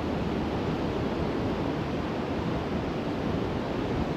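Steady, even wash of sea surf and wind on an open beach.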